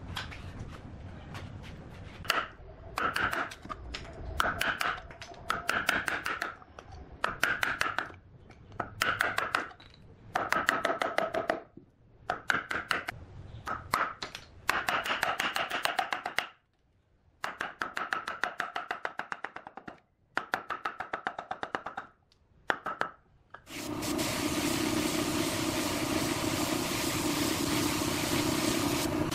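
Steel chisel chipping and scraping waste wood out of the mouth of a hollow turned wooden vase. It comes in short bursts of rapid knocks, and the vase body rings along with them. About 24 s in, this gives way to a spray gun hissing steadily, with a machine hum under it, as finish is sprayed on.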